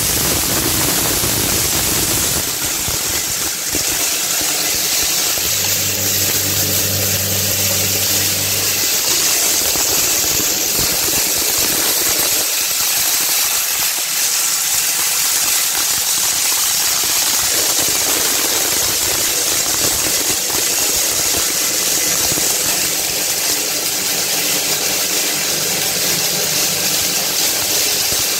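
Maize crushing machine running steadily, grinding maize into meal for chicken feed: a loud, even rushing noise with a low hum that comes in twice for a few seconds.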